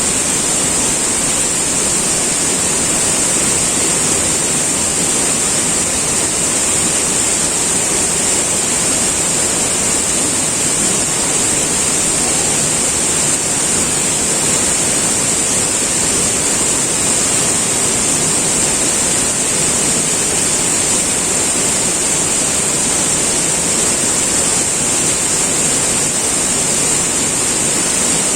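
River water rushing, a loud steady roar of flowing water.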